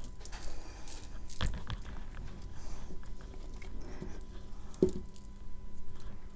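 Wet chalk-and-clay paste being squished and pressed by hand into a flat cake, with scattered small clicks and a couple of soft knocks.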